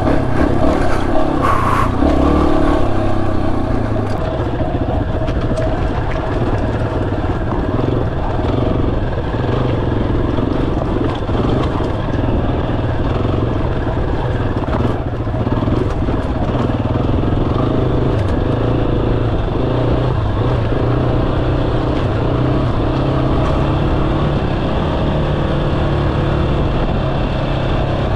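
Yamaha XT250's single-cylinder four-stroke engine running steadily as the motorcycle is ridden over rough trail, a little louder in the first few seconds.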